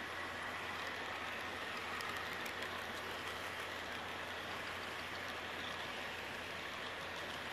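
Model train passenger cars rolling steadily past on the track: an even rush of small metal wheels on rail, with a few faint clicks about two seconds in.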